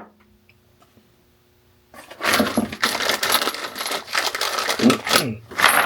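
Small galvanised steel pipe fittings clinking and rattling against each other as they are handled, starting about two seconds in after a near-silent pause.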